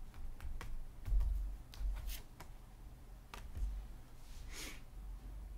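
Tarot cards being handled: light clicks and taps as cards are picked up and laid down, with dull bumps on the table and a brief sliding swish about four and a half seconds in.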